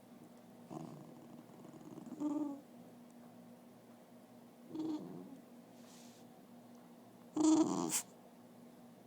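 Pet dog making short grumbling, groaning vocal noises, four separate sounds with pauses between. The last one, about seven seconds in, is the loudest, a breathy groan lasting about half a second.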